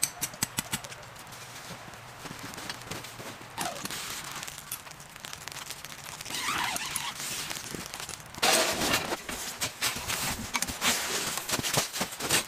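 Hands-on work with camping gear in snow: a quick run of sharp knocks at the start, scattered clicks and rustling, then louder crunching footsteps on packed snow and rustling over the last few seconds.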